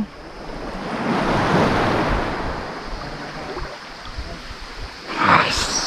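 Small waves washing in the shallows, with wind on the microphone; the wash swells about a second in and then fades, and a short, sharper noise comes near the end.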